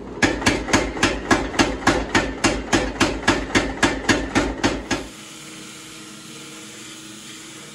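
Motor-driven tire-style power hammer striking a glowing billet in a rapid, even run of about four blows a second, setting the first forge weld of a layered 15N20 and 1084 Damascus billet. The blows stop about five seconds in and a steady mechanical running sound continues.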